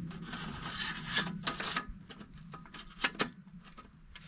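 Rough scraping and rubbing for about two seconds, with a few sharp knocks, two of them close together about three seconds in.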